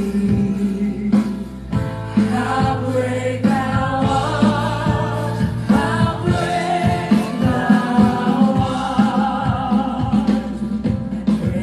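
Live gospel worship music: many voices singing a hymn together over a steady held accompaniment.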